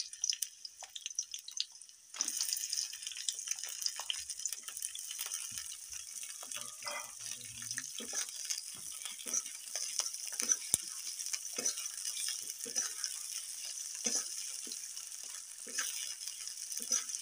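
Sliced onions sizzling in hot oil in a metal kadai, a steady hiss that starts about two seconds in, with the spatula scraping and clicking against the pan as they are stirred.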